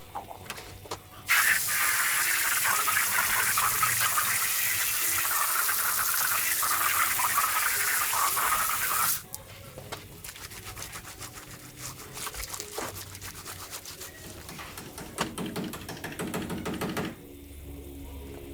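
A steady spraying hiss that starts suddenly about a second in and cuts off about eight seconds later, followed by quieter handling and rubbing noises.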